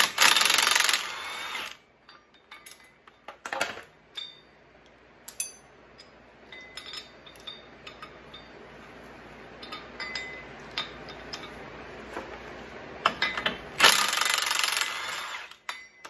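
Cordless impact wrench hammering nuts loose from the dually front-hub extension of a Ford Super Duty, in two bursts of about a second and a half, one near the start and one near the end. In between, light metallic clinks as the loosened nuts are handled.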